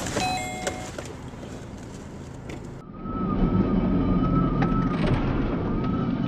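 Quieter road and engine noise with a few short high tones, then, after a sudden change about three seconds in, a steady low vehicle-engine rumble heard from inside the cab, with a slightly wavering high whine over it.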